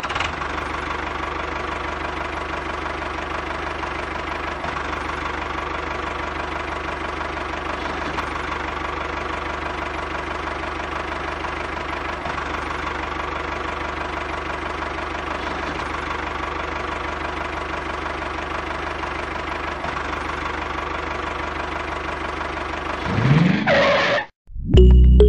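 An engine running steadily at a constant speed, like a small diesel-type engine idling. Near the end it gives a brief rising sweep and then cuts off suddenly.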